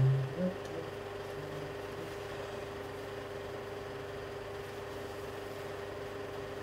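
Steady background hum with one constant tone over a light hiss. A couple of short, low sounds come right at the start.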